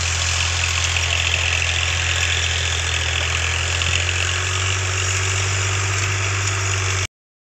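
An engine running steadily: a constant low drone with a hiss above it, which cuts off suddenly near the end.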